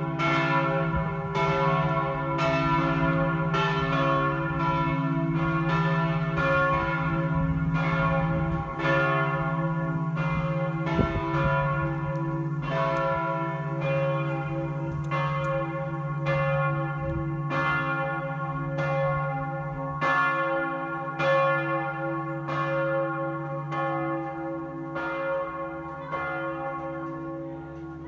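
Church bells ringing at the end of Mass, about one stroke a second, each stroke ringing on into the next over a steady low hum; the peal grows a little fainter near the end.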